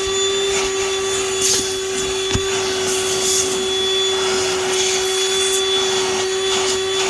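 Hart 20-volt cordless 2-gallon wet/dry vacuum running steadily with a constant motor whine and rushing airflow while sucking up dirt through a hose attachment. A few brief rattling bursts come through, and a single sharp knock about two and a half seconds in.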